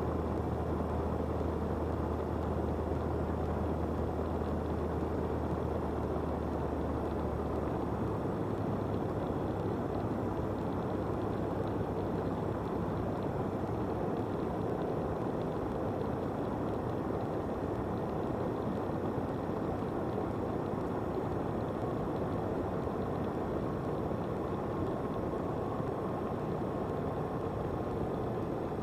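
Cessna 172's engine and propeller droning steadily, heard inside the cockpit on final approach. A steady low hum in the engine sound stops about eight seconds in, and the droning carries on.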